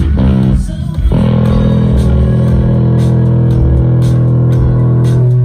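Electric bass guitar played through a bass amp during a line check: a few quick notes, then one low note held and left ringing for about four seconds before it is cut off.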